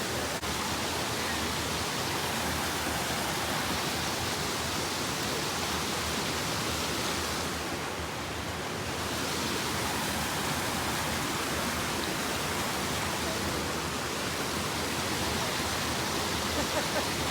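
Steady rush of water falling over a small woodland waterfall, dipping slightly a little past the middle.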